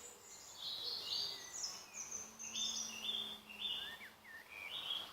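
Dusk chorus of several woodland songbirds: overlapping high chirps and short song phrases, some notes repeated several times in a row.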